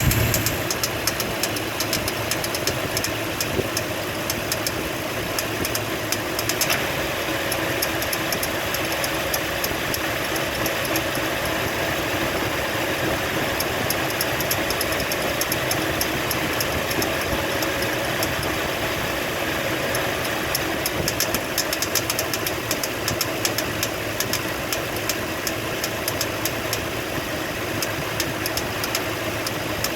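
Toyota 4.7-litre V8 idling warm, with a rapid, steady clicking over the engine note. The owner suspects a failing water pump or idler pulley.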